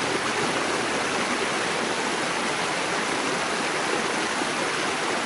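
A mountain stream running steadily over rocks, a constant rushing of water.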